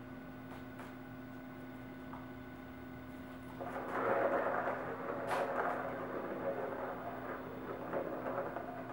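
A ball rolling around the plastic track of a circular cat track toy as a kitten bats it, starting about three and a half seconds in and going on unevenly, with one sharp click about five seconds in. A steady low hum sits underneath.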